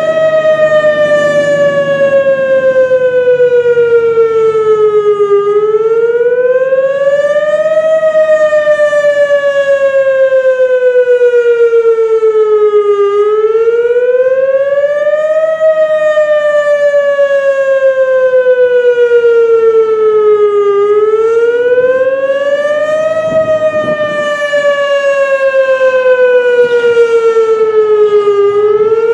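Single-cell Whelen WS-281 outdoor warning siren sounding a wail: one steady tone that rises in pitch over about two and a half seconds, then falls over about five, repeating about four times.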